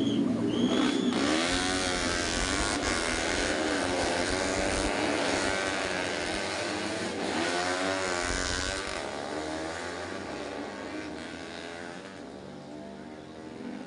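Four-stroke underbone motorcycles racing flat out on a drag strip. The engine pitch climbs and drops again and again as they shift up through the gears. The sound is loud at first and fades steadily as they pull away.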